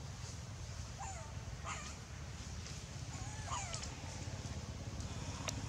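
A baby long-tailed macaque giving several short squeaky calls, some sliding up or down in pitch, over a steady low rumble.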